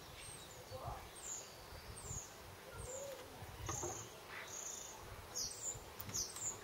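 A small bird chirping: a series of short, high chirps about once or twice a second, with two louder falling chirps near the end. Faint knocks underneath from hands working on the carburettors.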